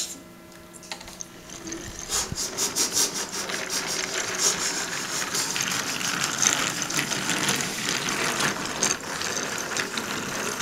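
Small model locomotive running along its track, its motor and gearing making a fast, steady clicking rattle that comes up about two seconds in.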